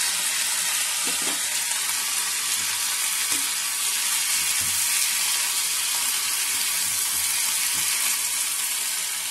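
Diced potato, onion and freshly added chopped tomato sizzling steadily in hot oil in a kadhai, stirred with a slotted metal spatula that scrapes the pan now and then.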